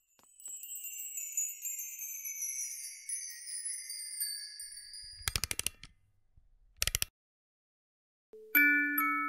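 Sparkling chime sound effect: a cascade of high tinkling notes sliding slowly down in pitch and fading away, with two short bursts of rapid clicking after it. About a second before the end, a glockenspiel melody begins.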